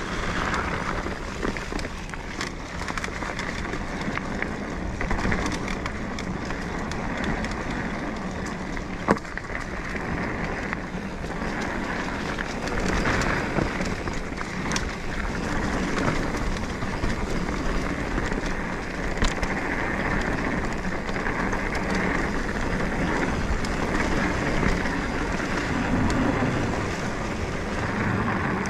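Mountain bike riding a dirt trail: steady rolling noise from the tyres and rattling from the bike, with scattered clicks and one sharp knock about nine seconds in.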